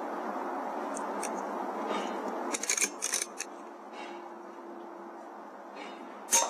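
A burst of sharp mechanical clicks a little past halfway, then one sharp crack near the end, the loudest sound: the shot of a sub-12 ft-lb AGT Uragan 2 air rifle, over a steady background hiss.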